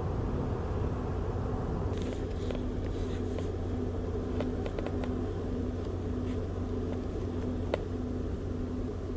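Steady low mechanical hum with a faint tone pulsing on and off about once a second, and a few light clicks and taps, the clearest one near the end.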